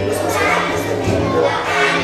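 A choir of young children singing a song with musical accompaniment.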